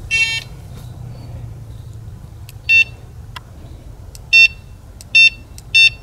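Electronic carp bite alarm giving short, high single beeps at irregular intervals, five in all, with a few faint clicks of handled gear between them.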